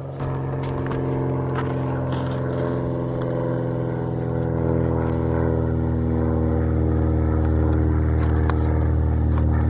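Small propeller plane flying over, a steady engine drone that grows louder as the plane comes closer, rising most from about halfway through.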